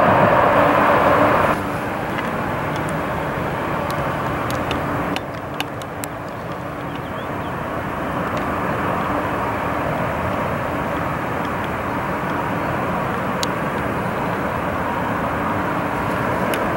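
Airliner jet engine noise: a louder stretch of jet noise cuts off abruptly about one and a half seconds in, and from about six seconds an Airbus A350's jet engines run steadily as it rolls along the runway, slowly growing louder.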